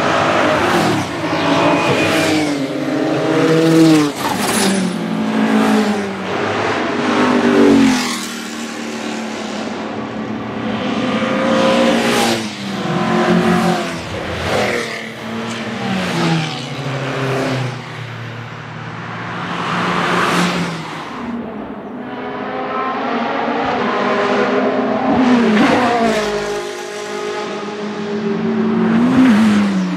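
Historic race cars passing one after another, accelerating hard. Each engine note climbs with the revs and drops at gear changes and as the car goes by.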